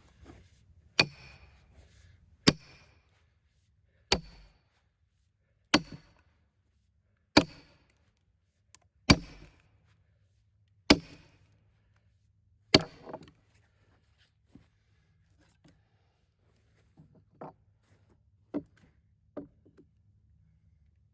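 Eight heavy hammer blows on a wedge driven into a knotty cedar log, one every second and a half or so, each a sharp crack with a short ring. Then a few lighter knocks and taps.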